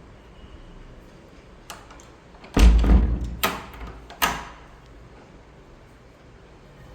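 A door being handled: a faint click, then a heavy thud about two and a half seconds in and two more sharp bangs over the next two seconds.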